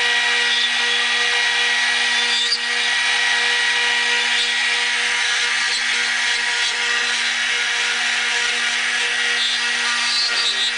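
CNC router spindle milling oak with an R1.5 cutter: a steady high spindle whine over the hiss of the cutter in the wood.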